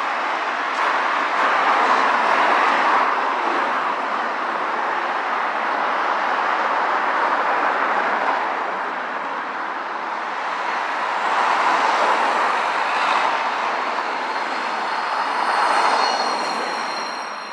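A rail vehicle passing close by: a loud rushing noise that swells and eases several times, with a thin high wheel squeal near the end.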